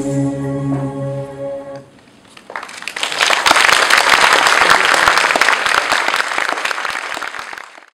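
Recorded Indian music holds its last sustained notes and stops about two seconds in. After a short pause an audience starts applauding, and the clapping fades out near the end.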